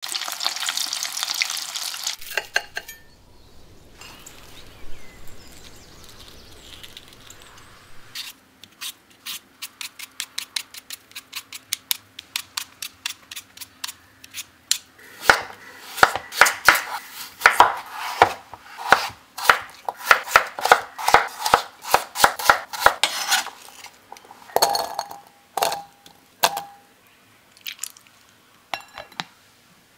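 Oil sizzling hard as breaded potato cheese sticks fry. Then a vegetable peeler scraping the skin off a raw potato in quick, even strokes, followed by louder, heavier knife strokes cutting the potato on a wooden cutting board. Near the end come a few ringing clinks of a glass bowl.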